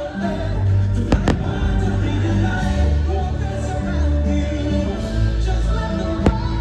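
Fireworks-show soundtrack music with sustained tones and deep low notes, broken by sharp firework bangs: two close together about a second in and one more near the end.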